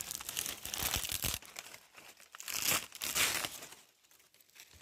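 Dry banana leaves crackling and crumpling as they are handled: a dense crackle through the first second or so, then two short bursts a little past midway.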